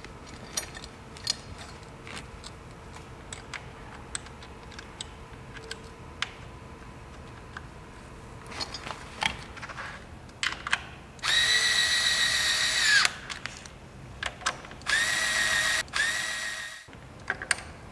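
Light clicks and knocks of parts being handled, then a cordless power driver runs twice, about two seconds and then a second and a half, tightening the fasteners that hold the blow-off valve in place. Its pitch bends as each run stops.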